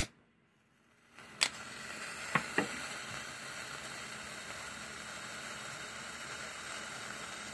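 Nitrated newspaper smouldering along its edge, making a faint, steady hiss. A few light clicks come in the first few seconds.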